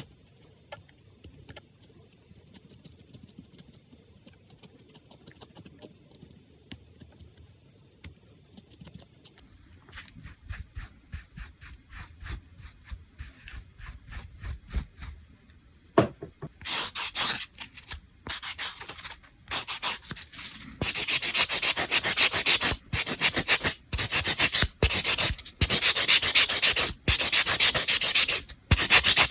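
Fingernails being filed by hand, a file rubbing back and forth in quick, even strokes. The filing is faint at first and turns loud a little past halfway, in runs broken by brief pauses.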